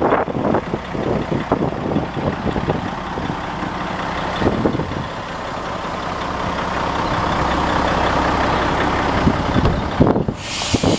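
Heavy diesel dump truck idling steadily, with many short clicks and knocks scattered through. A steady hiss comes in suddenly near the end.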